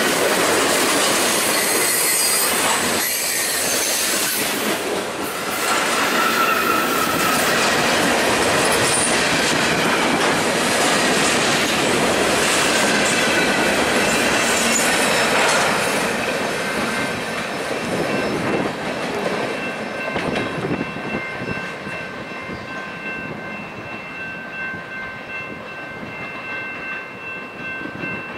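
Freight cars of a CN train rolling past at close range, steel wheels clattering over the rails and squealing. About sixteen seconds in the sound starts to fade as the end of the train pulls away, leaving a thin steady high whine.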